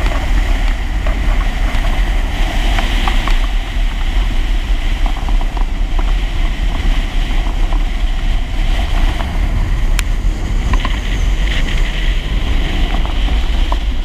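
Yamaha WaveRunner personal watercraft running steadily at speed across the water, heavy wind buffeting on the microphone and water rushing under the hull.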